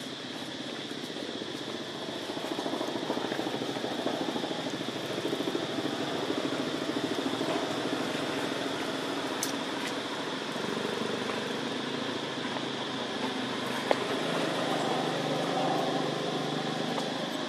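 A small engine running steadily, getting somewhat louder a couple of seconds in and again near the end, over a constant high hiss.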